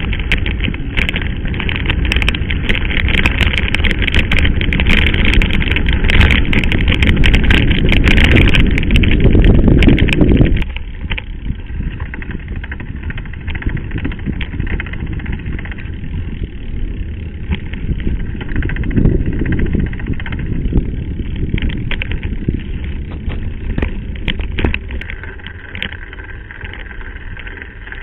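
Mountain bike riding over a rough gravel dirt track: tyres crunching and the bike rattling, with wind rumbling on the camera's microphone. About ten seconds in the noise drops sharply and stays lower.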